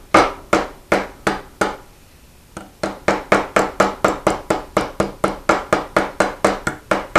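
Hammer striking a 1/8-inch rod laid on a sheet-copper leaf over a grooved wooden block, pressing a vein groove into the leaf. A few blows, a short pause about two seconds in, then steady blows at about three to four a second.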